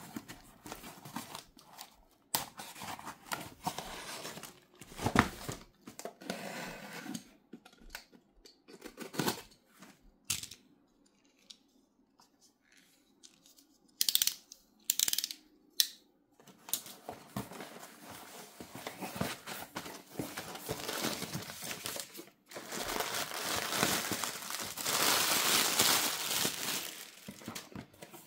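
A cardboard shipping box being handled and opened by hand: scraping and knocks on the cardboard, then a few sharp clicks about halfway through as a snap-off utility knife comes into use. After that comes a long stretch of slitting, tearing and crinkling of packing tape and cardboard, loudest near the end.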